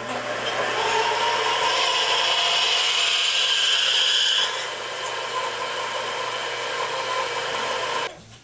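Chinese mini lathe running while a drill bit in the tailstock chuck cuts into the part spinning in the chuck, opening the hole out to 7 mm: a steady motor hum under a loud, high cutting noise. The cutting noise eases about halfway through, and the lathe stops abruptly about eight seconds in.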